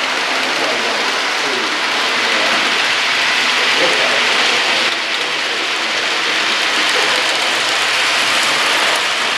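HO scale model trains running on the layout's track: a steady rolling hiss and rattle of small metal wheels and mechanisms.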